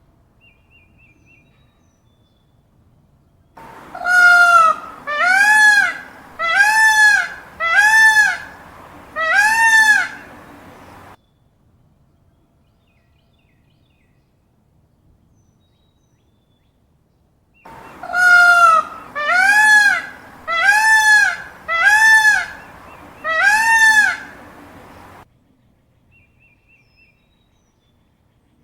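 Peacock calling: two series of five loud calls, each call rising then falling in pitch, about one a second. The first series starts about four seconds in and the second about eighteen seconds in.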